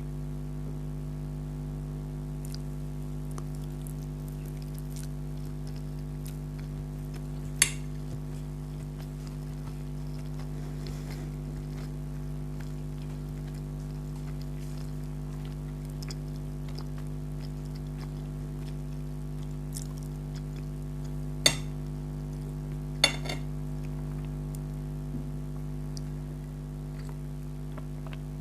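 Eating spaghetti: faint chewing and mouth sounds over a steady electrical hum, with three sharp utensil clinks on the dishes, about 8, 21 and 23 seconds in.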